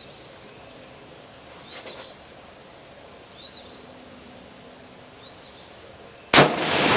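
A bird gives a short chirp about every two seconds. Near the end comes a single loud shot from a Swiss K31 straight-pull rifle firing a 7.5 mm round, its echo trailing off slowly.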